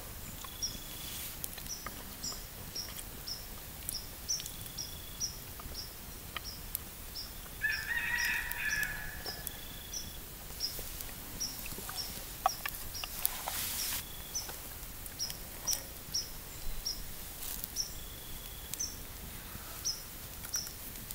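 Birds calling: a steady series of short high chirps about twice a second, with one longer, lower call lasting about a second and a half about eight seconds in.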